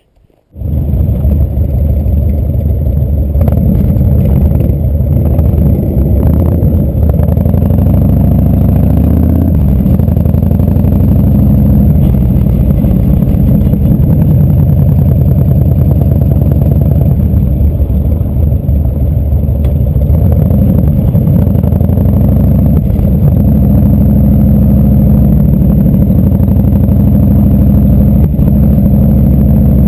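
V-twin cruiser motorcycle engine running steadily at low road speed, heard close up from the rider's seat.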